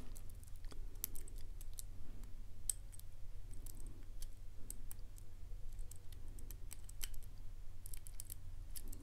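Faint, irregular metallic clicks and ticks of a hook pick working the pins inside a brass pin-tumbler lock cylinder, with a tension wrench in the keyway: single-pin picking by feel. A steady low hum runs underneath.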